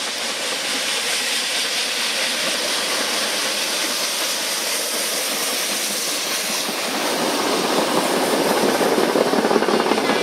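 Steam locomotive 131.060 working hard as it approaches and passes under the bridge with its train: a steady hiss of steam and exhaust that gradually grows louder. About seven seconds in, the rumble of the train rolling past underneath joins in and the sound gets louder and fuller.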